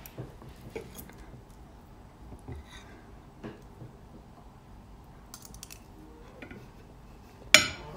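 Metal fork and spoon tapping and scraping on a ceramic plate in small scattered clicks while eating, with one sharp clink near the end.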